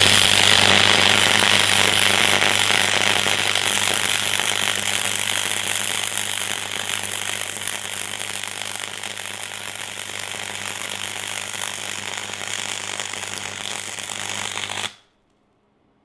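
Flux-core MIG welding arc from a Parkside PFDS 120 A2 gasless welder, crackling steadily with a low hum underneath while a bead is laid, then cutting off abruptly near the end as the arc is broken.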